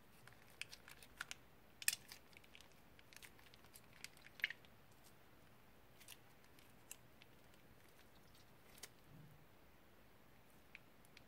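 Faint, scattered crinkles and clicks of a plastic piping bag being squeezed in the fingers as slime is piped out. They are thickest in the first half, with the sharpest about two seconds in and again about four and a half seconds in.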